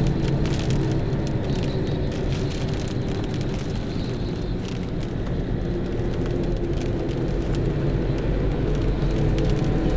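Steady road and engine noise heard inside a car on a wet highway, with scattered ticks of rain striking the windshield.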